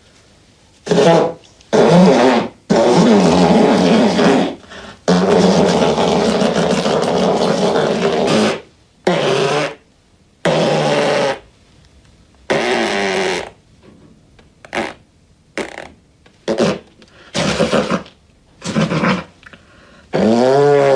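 A man's exaggerated comic sneezes and loud nose-blowing, a dozen bursts in a row, some short, a few held for two to three seconds, the last with a rising pitch.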